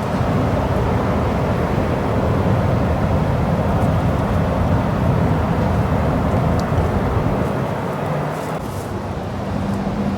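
Strong wind blowing across the microphone: a steady rushing noise that eases slightly near the end.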